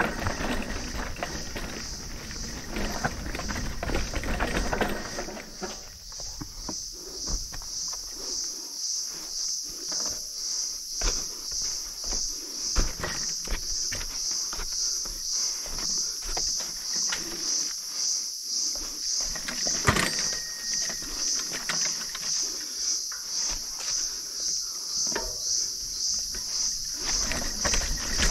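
Insects keep up a steady, high pulsing buzz. Under it come scattered clicks and knocks from a mountain bike rolling over a rocky trail, with a louder rumble of riding noise in the first five seconds.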